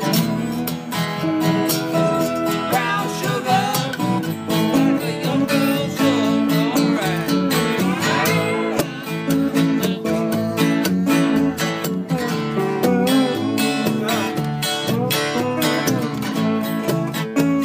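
Background music: a guitar strummed and picked at a relaxed pace.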